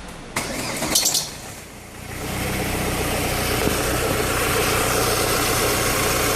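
Ford Focus engine being started, a short burst of cranking about half a second in, then settling into a steady idle from about two seconds in. At this tick-over it makes the strange noise the owner reports, which persists despite a new alternator belt and tensioner.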